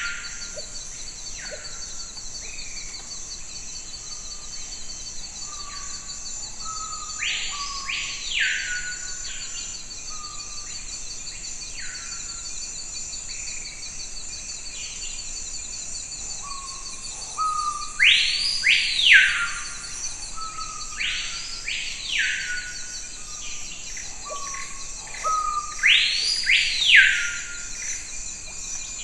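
Forest ambience: a bird gives loud, arching whistled calls, mostly in pairs, several times (about 7 s in, then around 18, 21 and 26 s), over a steady high-pitched insect trill.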